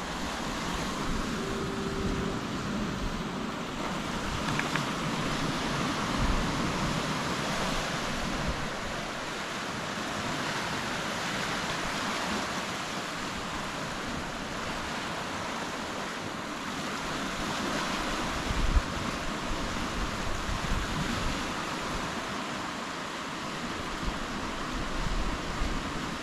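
Ocean surf washing in a steady rush that rises and eases slightly, with wind on the microphone.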